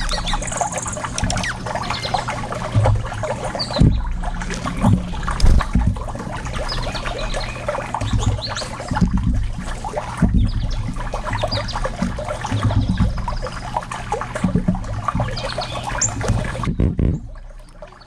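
Birds, including a blue jay and a downy woodpecker, foraging in seed and peanut shells right at the microphone: a dense crackle of pecking and seed and shell bits rattling, with low knocks and a few short high chirps.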